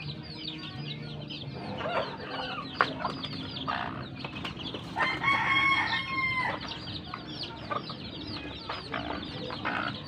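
Gamefowl chicks peeping continuously in quick, high chirps. A single sharp knock comes about three seconds in. About five seconds in a rooster crows once, held for about a second and a half.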